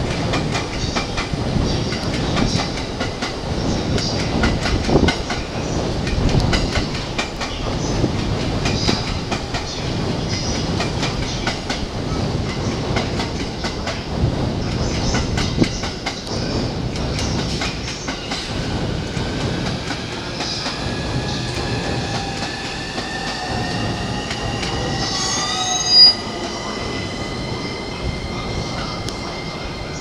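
E231 series electric commuter train running along the track, its wheels clattering over rail joints. A rising whine comes in during the second half, and about 26 seconds in there is one brief, sharp squeal.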